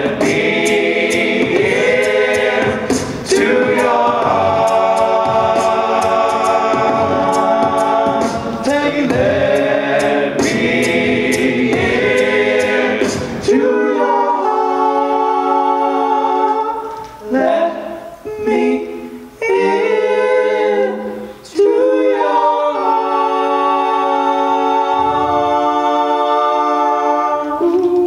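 All-male a cappella group singing close-harmony chords, with a vocal bass line and a steady beat of vocal percussion. About thirteen seconds in, the bass and percussion drop out, leaving held chords with a few short breaks before the full harmony returns.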